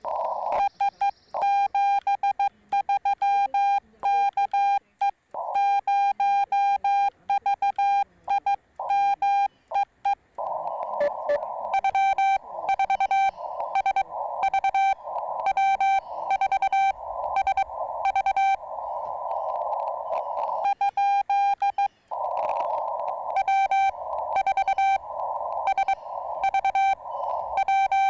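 Morse code (CW) tones from a Yaesu FT-891 transceiver, a single steady tone keyed in quick dots and dashes. For the first ten seconds the tone is clean, as when the operator sends with the paddles and hears the radio's sidetone. About ten seconds in, a band of receiver hiss comes up under the keyed tone, as when another station's Morse is received through the narrow CW filter.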